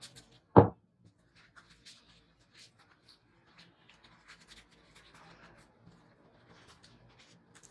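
Tissue paper rustling and light scratching as a small metal nameplate is wiped and worked by hand, with scattered small clicks. One loud thump about half a second in.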